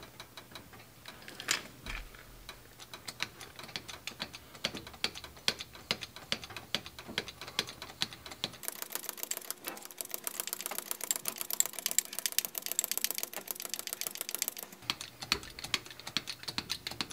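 Small red hydraulic bottle jack pumped by its handle, giving a fast run of clicks as it pushes the gas-charged shock up toward its lower mount on the suspension arm. The clicking gets busier and brighter about halfway through.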